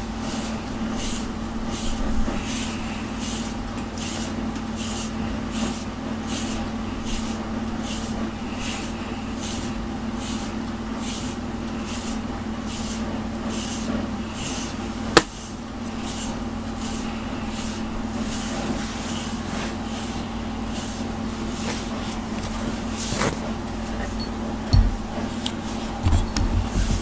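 Deshedding brush stroking through a long-haired cat's fur, a rhythmic swish about twice a second, over a steady low hum. A sharp click about halfway through.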